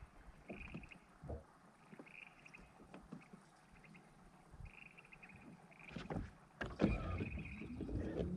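Fishing boat on the water: scattered knocks and thumps on the hull with water sloshing, louder about six to seven seconds in. A short high chirping trill repeats every second or two.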